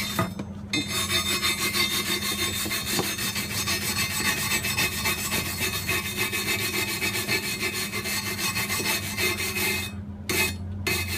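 Hand wire brush scrubbing fast back and forth over a freshly laid flux-core weld bead on rusty steel plate, cleaning off the weld. The scraping stops about ten seconds in.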